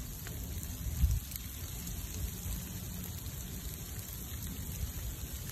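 Steady hiss of rain falling around a burning wood bonfire, with faint crackles from the fire and a low rumble. A brief bump comes about a second in.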